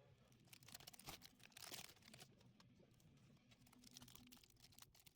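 Faint crinkling and clicking of a trading card pack wrapper being handled, with a denser crinkle about a second and a half in.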